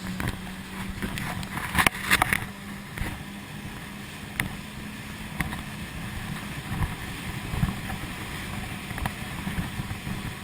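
Jet-ski engine running steadily at low speed with a constant low hum, water slapping and wind on the microphone. A burst of loud splashes or knocks comes about two seconds in, then a few single sharp knocks.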